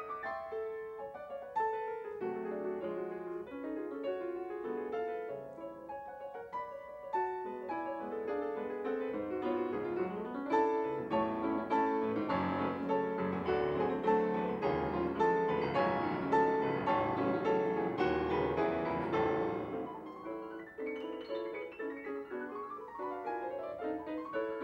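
Steinway grand piano played solo in a classical piece: a dense stream of notes that grows louder and fuller in the bass from about ten seconds in, then drops back softer near the end.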